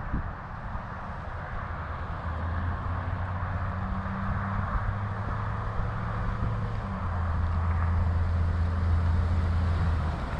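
Bass boat's outboard motor running steadily, its low hum stepping to a new pitch twice, with wind and water noise over it.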